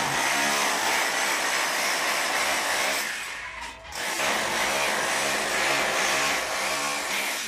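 Electric power tool running under load, in two long runs with a short break about three seconds in.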